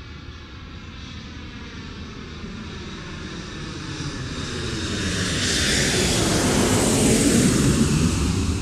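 Jet airliner's engines heard from inside the cabin during the takeoff roll: faint gliding engine tones at first, then a steadily rising roar that grows much louder over several seconds as the plane accelerates down the runway.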